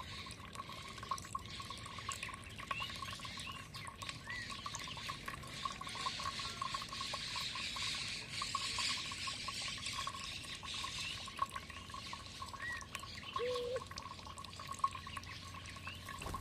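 Water running steadily, with a few short bird chirps over it and two lower calls near the end.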